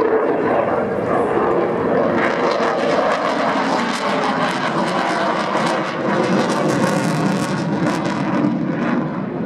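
Eurofighter Typhoon fighter jet flying overhead, its twin Eurojet EJ200 turbofan engines making loud, continuous jet noise shot through with rapid crackle, easing slightly near the end.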